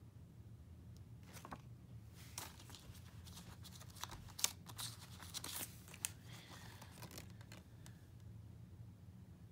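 A paper digital-code insert and the plastic Blu-ray case being handled: rustling, crinkling and a run of sharp clicks, loudest about halfway through, over a faint low hum.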